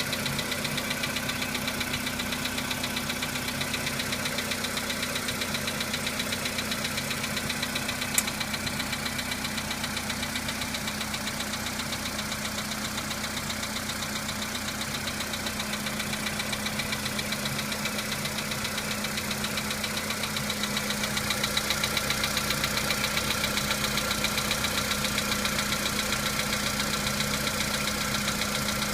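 Volkswagen Polo Sedan petrol engine idling with a fast, even knock on a cold start. The owner says the knock fades as the engine warms up. A single sharp click comes about eight seconds in.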